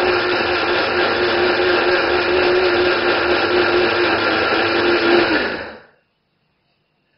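Electric blade grinder running steadily as it mills dried Jerusalem artichoke root into a flour-like powder. It is switched off about six seconds in, and the motor winds down and stops within a fraction of a second.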